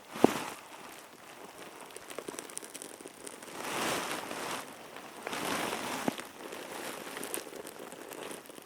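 Birch bark being torn into strips by hand: crinkly, crackling tearing in swells about a second long, with a sharp snap just after the start and another near the middle.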